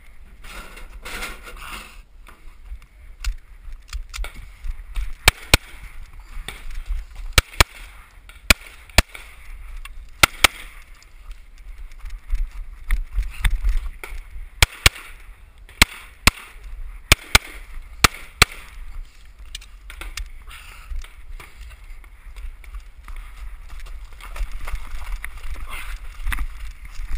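A competition pistol firing a string of shots, mostly in quick pairs with short pauses between them, for about thirteen seconds. Near the end there are no shots, only scuffing and rustling from crawling over gravel and turf.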